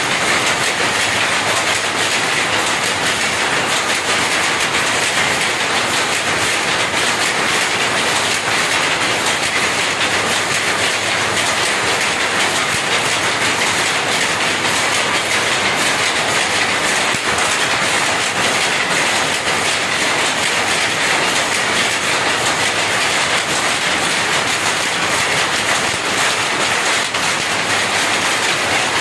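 Jacquard power looms running, a loud, steady, rapid mechanical clatter without pause.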